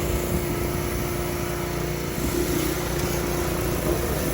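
Small petrol engine of a pressure washer running steadily, a constant hum over a low rumble.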